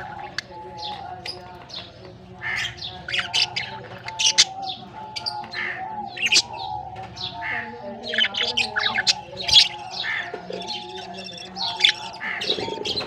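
Budgerigars chirping: many short, quick calls overlapping one another without a break.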